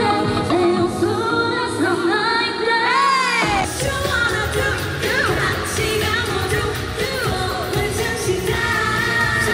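A K-pop song performed live: a woman sings into a microphone over the backing music through a concert sound system. About three and a half seconds in, the sound cuts abruptly to another part of the performance.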